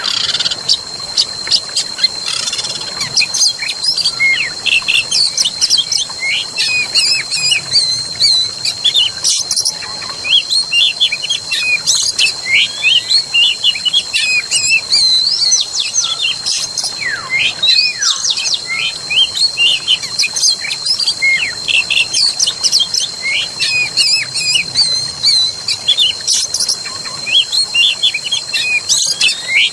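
A dense chorus of many small birds chirping and twittering in quick, overlapping calls, over a constant high-pitched steady tone.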